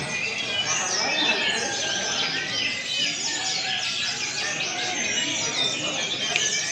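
Many caged SRDC songbirds singing at once, a dense tangle of overlapping chirps, trills and whistles, over a murmur of people's voices.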